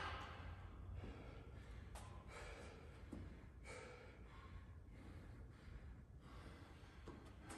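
A man breathing hard between sets of toes-to-bar, blowing out a few breaths about every two seconds, the first the strongest.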